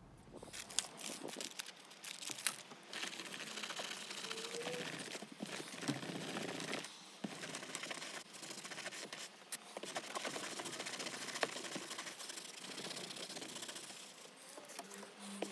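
A damp cleaning wipe rubbed back and forth over a perforated leather car seat: a continuous scrubbing hiss with scattered small clicks.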